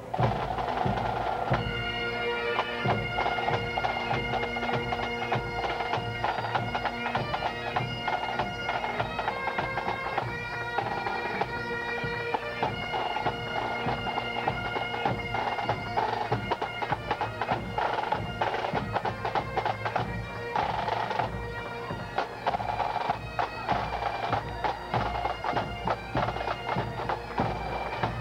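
Marching firefighters' pipe band: bagpipes playing together over a steady bass drum beat, the pipes taking up about a second and a half in.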